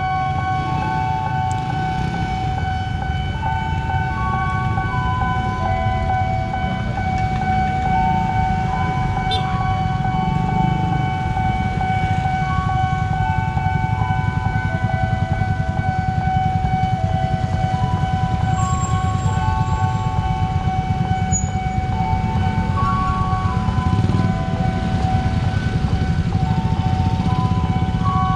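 Railway station bell playing a slow repeating chime melody over a steady held tone, signalling that a KRL commuter train is about to arrive, with a low rumble of idling traffic underneath.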